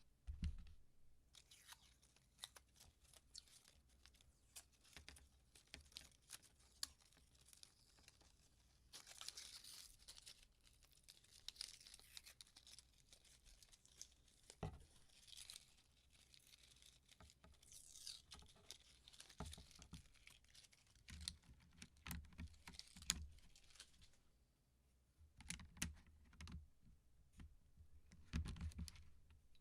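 Custom mechanical keyboard parts being handled during assembly: scattered small plastic clicks and taps, with several stretches of crinkling, tearing noise and a few low thumps near the end.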